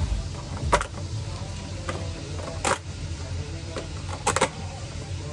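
A few sharp knocks over a low steady hum: one about a second in, one near three seconds, and a quick double about a second before the end.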